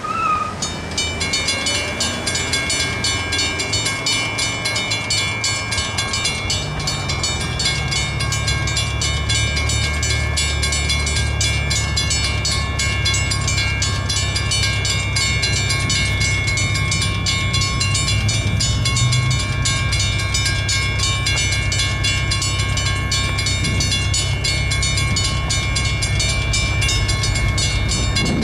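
Mechanical railroad crossing bell ringing with fast, even strokes, a metallic ring that keeps going without a break. A low rumble joins about a quarter of the way in and carries on under the bell.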